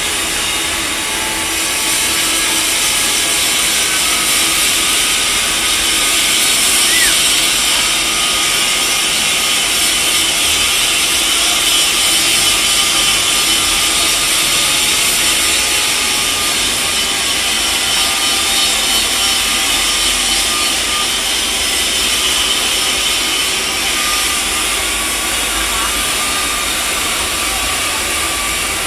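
Electric arc welding on a stainless steel pipe joint: a steady, loud hiss that holds without a break.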